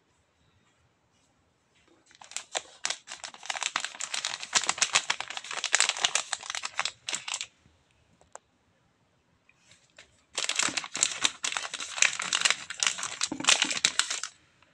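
Thin plastic food wrapper being crinkled in the hands in two spells of dense crackling, the second starting a few seconds after the first stops.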